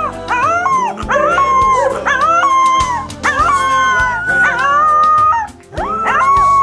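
A three-week-old Miniature American Shepherd puppy howling: a string of high howls, each sliding up and holding a note before dropping away, with a brief pause past the middle. Background music plays underneath.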